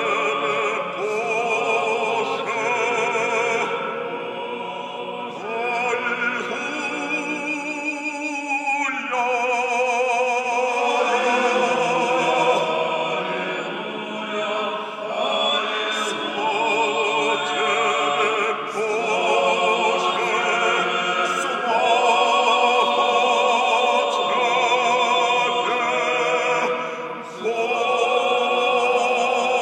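Small male a cappella choir singing sustained chords in several parts, the voices wavering with vibrato and ringing in a reverberant stone church. The singing drops away briefly near the end before the next phrase begins.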